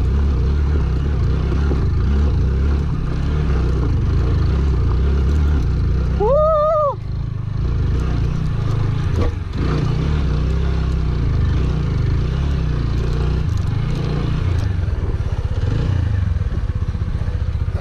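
TVS Apache motorcycle's single-cylinder engine running under load as it climbs a steep dirt hillside. About six seconds in, the rider gives a short rising-and-falling 'woo' shout.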